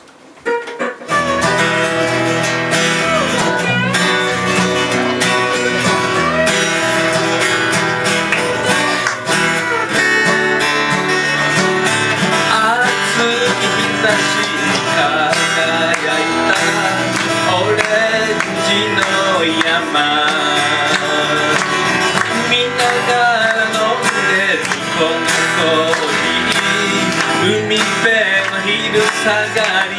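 A small band playing live on acoustic and electric guitars, the music starting about a second in.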